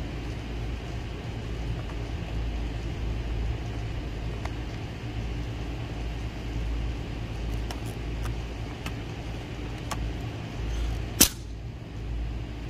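Faint clicks of a Hunter PGP-ADJ sprinkler's plastic parts being worked loose over a steady low rumble, then near the end one sharp, loud snap as the top assembly comes free: a stuck gasket lets go and the compressed spring pushes the part upward.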